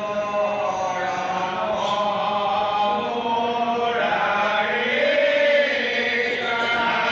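Voices chanting Assamese Vaishnavite naam, a devotional chant sung in long held notes that slide slowly in pitch.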